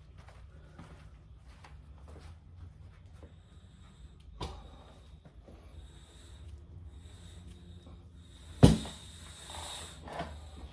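Bead breaker working the bead of a Dunlop Roadsmart 3 motorcycle rear tire: a light knock about four seconds in, then a loud sharp crack near the end as the bead breaks free of the rim, followed by a little clatter.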